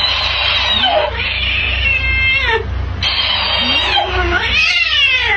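A cat yowling in several drawn-out calls that slide up and down in pitch, over a steady low hum.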